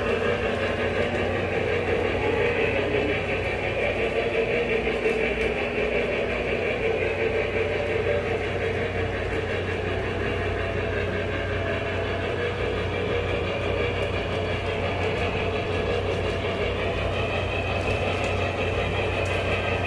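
Lionel Vision Line Challenger O-scale model steam locomotive running steadily on three-rail track. The sound is an even mechanical running noise with no breaks.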